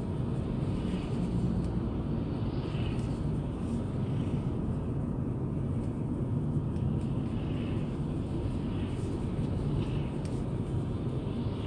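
Steady low road and engine drone heard inside a moving car's cabin, as it passes a line of tractors travelling the other way.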